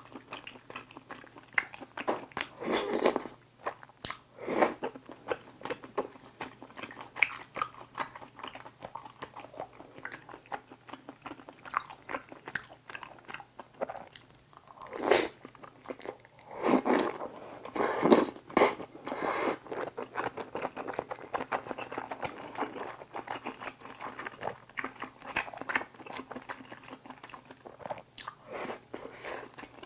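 Close-miked eating sounds of a person chewing chewy tteokbokki rice cakes in sauce with melted cheese: wet mouth noises and small clicks in irregular bursts, loudest a little after halfway through.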